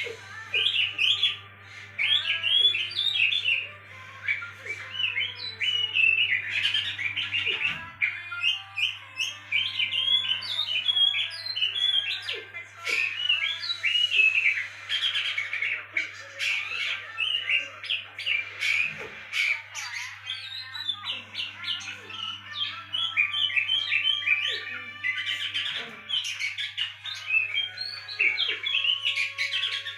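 Oriental magpie-robin (kacer) singing a fast, continuous stream of varied chirps and whistled notes, used as a lure song to stimulate other kacer to sing. A steady low hum runs underneath.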